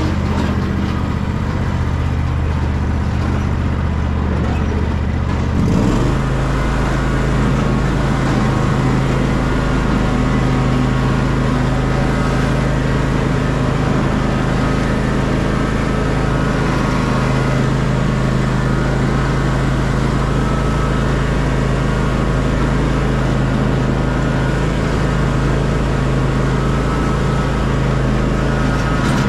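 Small tractor engine running steadily close by, its note shifting abruptly about six seconds in, then holding steady.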